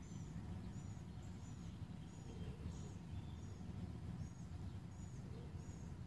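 Faint outdoor ambience: a small bird gives a short, high chirp over and over, about three every two seconds, over a low steady rumble.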